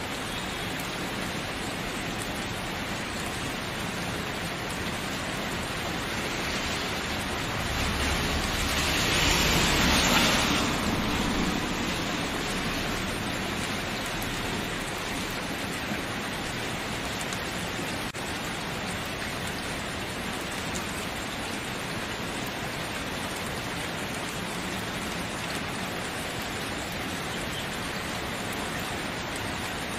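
Steady rain falling, an even hiss of drops. About eight seconds in it swells louder for a few seconds, with a low rumble underneath, then settles back to the same steady level.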